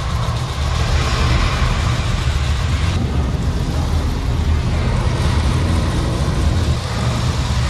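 Recorded launch noise of a Saturn V rocket played loud through a theater's sound system: a steady deep rumble with rushing noise over it.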